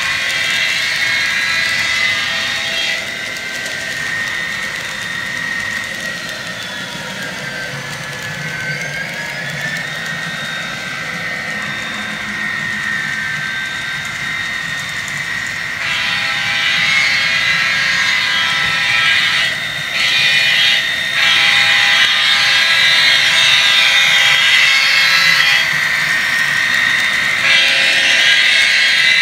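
Sound decoder of an Intermountain N scale SD40-2 model locomotive playing a diesel locomotive engine through its tiny speaker, a steady pitched drone, with the model freight train running on the track. It turns duller and quieter for a while, then comes back louder and brighter a little past halfway as the train comes round to the front.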